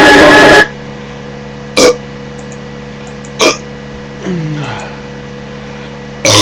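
A song from a computer speaker cuts off abruptly just after the start. Then a man's throat makes three short, sharp hiccup-like gulps spread over several seconds, with a brief low falling croak between the second and third, as he works up a burp.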